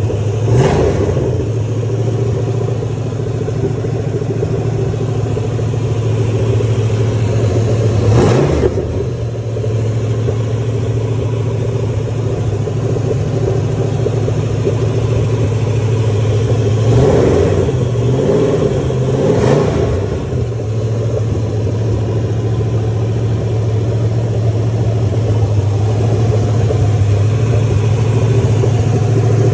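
Car engine idling steadily, briefly revved a few times: once near the start, once about 8 seconds in, and a couple of times midway.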